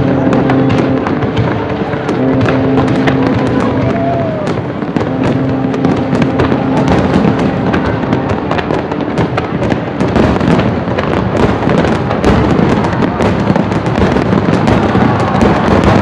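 Fireworks display: aerial shells banging and crackling without a break. The crackle grows denser and louder about ten seconds in.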